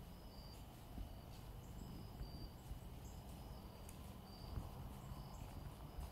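Quiet woodland ambience: faint, short, high-pitched chirps recurring irregularly, over a thin steady high tone and a low rumble.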